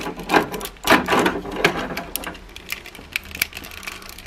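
Plastic parts of a Transformers Masterpiece MP-27 Ironhide figure clicking and creaking as its stiff hinges are forced and pieces are pushed into place: a run of sharp, irregular clicks and taps.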